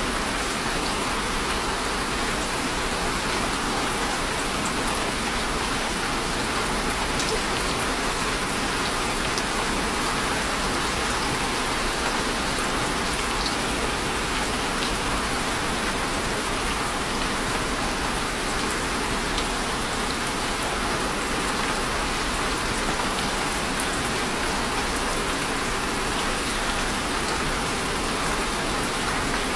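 Steady rain falling, an even hiss of drops with a few faint separate drop ticks.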